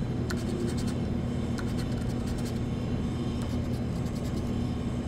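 Scratch-off lottery ticket being scratched with the blunt end of a pencil: short, irregular runs of dry scraping strokes over a steady low hum.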